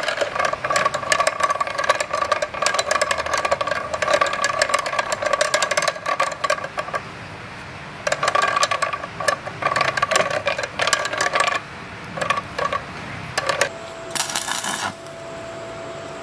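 Homemade pin-tooth bevel gearbox turned by hand through locking pliers on its shaft: the welded steel pins clatter as they mesh, a fast rattle with a ringing note from the steel housing. It stops about halfway, then comes back in shorter spells, and a short hiss follows near the end.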